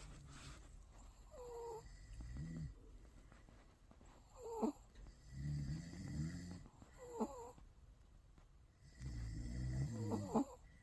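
Five-month-old Bichon Frisé puppy snoring in its sleep. Low snores come about every three seconds, alternating with short high whistling squeaks that slide down in pitch.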